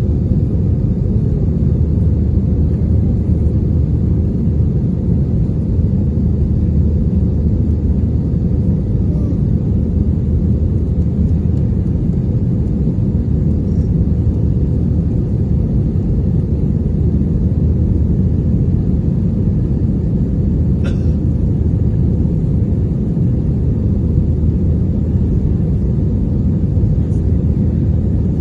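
Steady, loud low rumble of an Airbus A321neo's engines and rushing air heard inside the passenger cabin, with a faint tick about two-thirds of the way through.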